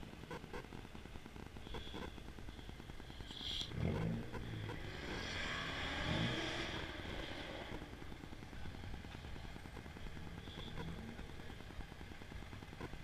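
A car's engine and exhaust swelling as it drives past, loudest about four to seven seconds in and then fading, over a low steady background rumble.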